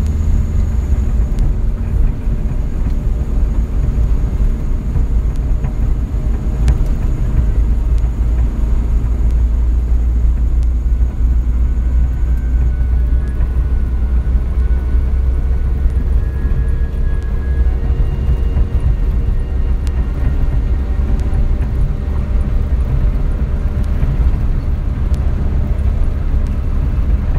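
Moving vehicle's engine and road noise: a steady low rumble with faint engine tones that climb slightly as the vehicle speeds up.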